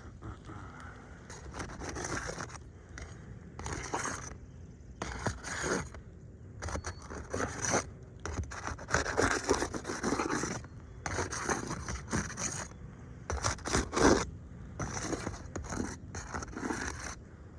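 Repeated scraping on asphalt roof shingles during a repair of wind-creased shingles, in irregular strokes of about half a second to a second each, with the loudest stroke about two-thirds of the way through.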